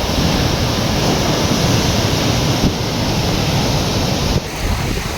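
Stormy sea surf, waves breaking and washing ashore in a steady loud rush, with strong wind buffeting the microphone in uneven low rumbles. The noise thins a little near the end.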